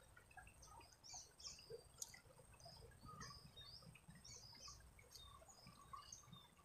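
Near silence: faint ambience of a shallow river, with short high chirps and ticks scattered throughout.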